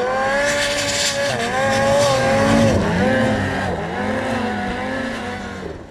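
Turbocharged 850 two-stroke snowmobile engine revving hard nearby, its revs held high and then dropping and climbing again several times.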